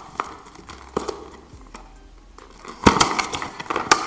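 Hands opening a small cardboard earbuds box: scattered light clicks and taps, then a sharp knock nearly three seconds in and a quick run of rustling clicks as the packaging comes apart.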